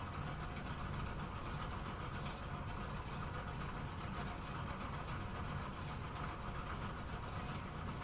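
Bowling alley sound: a steady rumble of balls rolling down the lanes, with a few faint clatters of pins scattered through it.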